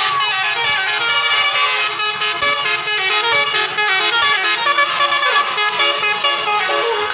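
Indonesian bus 'telolet' horn, a multi-tone air horn playing a quick tune of short stepped notes that change pitch several times a second.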